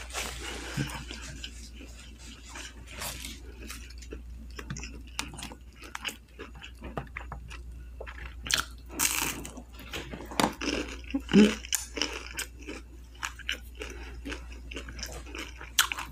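A person chewing and biting crunchy food close to the microphone, with irregular crisp crunches and wet mouth sounds.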